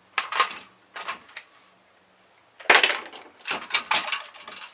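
Knocks and clicks of small metal and plastic parts being handled while a control panel is taken apart by hand. After a short quiet there is a louder clatter a little under three seconds in, followed by a few more clicks.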